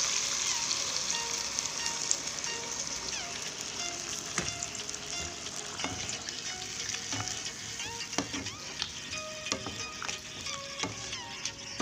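Water poured into a hot wok of frying spiced vegetables sizzles, loudest at first and slowly dying down as the water heats. A spatula stirs through the pan, knocking and scraping against it several times.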